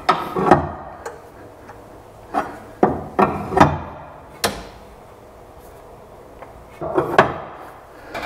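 Large open-end wrench clinking against a steel jam nut on a Panhard bar rod end as it is fitted and turned to tighten the nut: sharp metallic clinks in short clusters, near the start, a run of them between about two and four and a half seconds in, and two more about seven seconds in.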